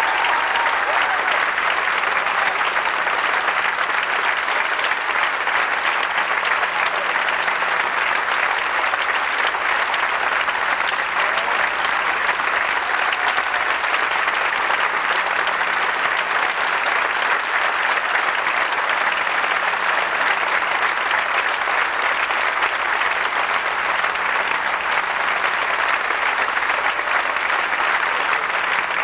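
A full theatre audience applauding steadily and without a break: an extended ovation at the end of a performance.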